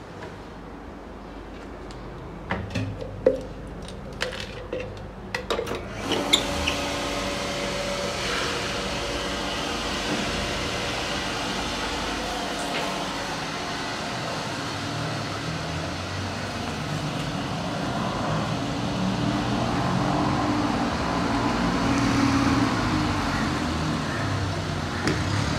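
A few scattered knocks and clicks, then about six seconds in a small electric motor starts and runs steadily with a hum, getting slowly louder.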